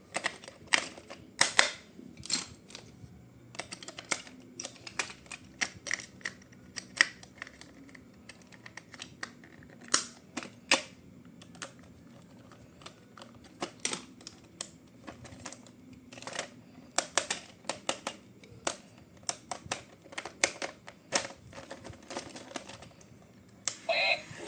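Irregular run of sharp clicks and taps from objects being handled by hand, in uneven clusters with short pauses.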